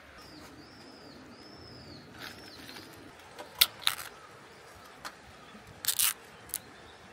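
A bird calls a quick run of four or five high, arching notes. Then a full-open-lid beer can is opened: two sharp clicks as the tab is worked, a short loud burst as the whole lid comes away, and one more click.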